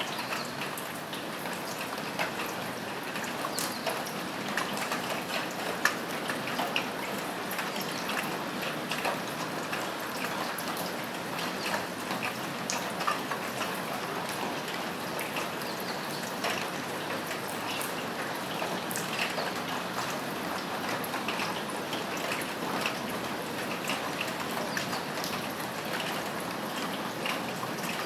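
Steady rain falling on a roof, with many separate drops ticking and splashing through the even hiss, one sharper drop about six seconds in.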